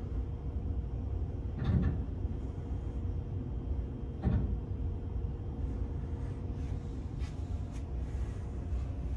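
Steady low rumble and hum of a ferry's interior while under way, with two dull thumps, one about two seconds in and another a little past four seconds.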